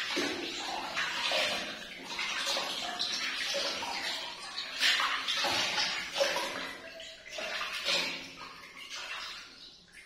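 Water splashing and sloshing in a small plastic baby bathtub as hands scoop and rub water over a baby monkey being bathed, in irregular splashes.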